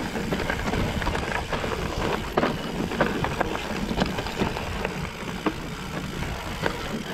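Trek Top Fuel full-suspension mountain bike rolling down a rocky trail: steady tyre rumble over dirt and stone with frequent irregular knocks and rattles from the bike.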